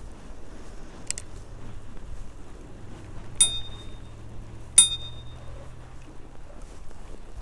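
Bicycle bell on the handlebar rung twice, about a second and a half apart, each a sharp ring that fades quickly, over a low steady rumble.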